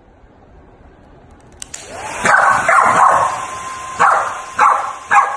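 A dog barking several times, beginning about two seconds in.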